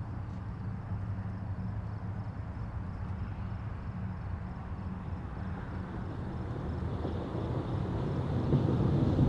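A steady low rumble that swells over the last couple of seconds as a steam locomotive hauling coaches approaches.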